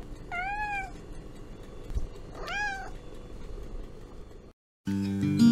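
Domestic cat meowing twice, two short calls about two seconds apart, each rising then falling in pitch. Near the end, after a brief drop to silence, acoustic guitar music starts and is the loudest sound.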